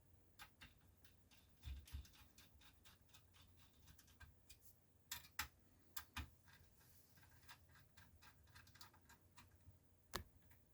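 Faint, irregular clicks and taps of small metal and plastic parts being handled on a 5.25-inch floppy disk drive as it is worked on by hand, a few louder clicks among them. Otherwise near silence.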